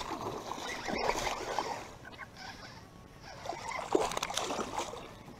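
Water splashing in irregular bursts as a hooked small bass is fought and reeled in beside a boat.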